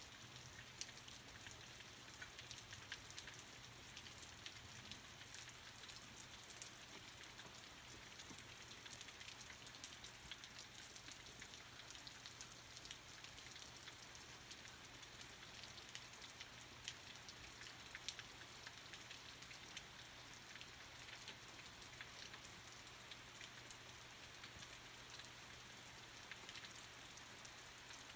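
Faint steady rain, with many small drops ticking close by and no thunder.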